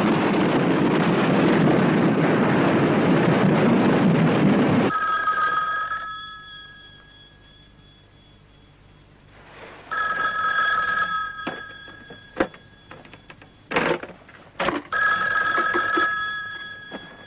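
A loud, dense wash of noise cuts off sharply about five seconds in. Then a desk telephone's bell rings three times, about five seconds apart, with a few short knocks between the rings.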